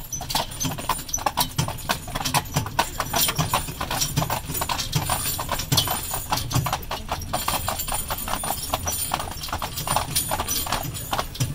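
Hooves of two harnessed carriage horses walking on pavement: a steady clip-clop of many sharp hoof strikes a second.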